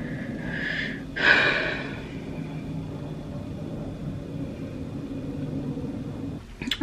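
Two breathy exhalations in the first two seconds, the second one louder, over a steady low hum.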